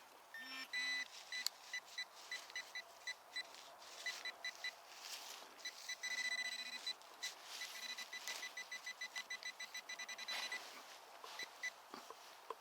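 Metal detector signalling targets: many short high beeps, coming in quick runs around the middle, and a few brief low tones near the start and again about six seconds in.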